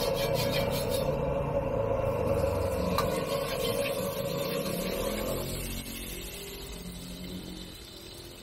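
Ring gas wok burner running with a steady rushing noise while a steel ladle scrapes and swirls liquid around a carbon-steel wok. The rushing drops off about five and a half seconds in.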